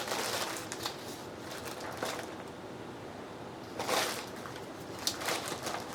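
Paper and craft materials being handled on a work surface: a few short rustling swishes, the longest about four seconds in, with light taps and clicks about five seconds in.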